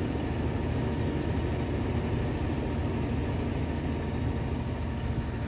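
Diesel tractor engine running steadily, a low even hum heard from inside the cab.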